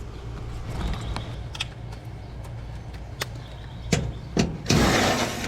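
Scattered clicks and knocks of hands and tools working on an air-conditioner condensing unit over a steady low mechanical hum. A short, loud rushing noise comes near the end.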